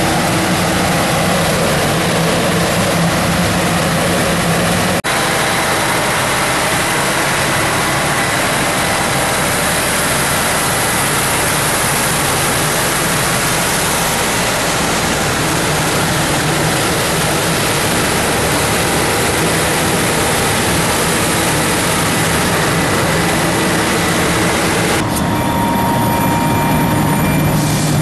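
Vacuum system of a Vactor GRV-2 glycol recovery truck running: a loud, steady rushing of air at the pick-up head over the drone of the diesel driving it. Near the end the rushing falls away, leaving a lower, steadier engine hum.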